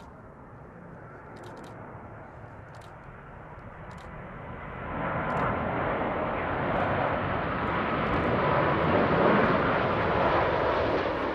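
Jet noise from a RwandAir Airbus A330-300 with Rolls-Royce Trent 700 engines on landing approach with its gear down. The steady rushing sound grows sharply louder about five seconds in as the airliner passes close, and stays loud to the end.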